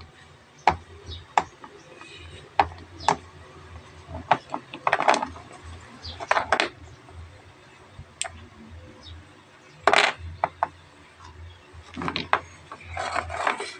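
Hard stones clacking against a metal magnet and knocking on a hard tabletop as the magnet picks them up and they are set down. The knocks are irregular and sharp, with a few longer rattling clacks.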